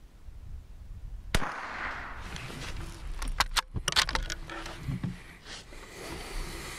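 A single shot from a Ruger American Rimfire bolt-action .22 LR rifle, a sharp crack about a second in. About a second later comes a quick run of metallic clicks as the bolt is worked to eject the spent case and chamber the next round.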